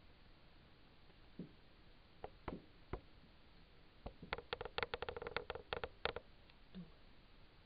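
A few single light clicks, then a rapid run of clicks and taps lasting about two seconds, about four seconds in.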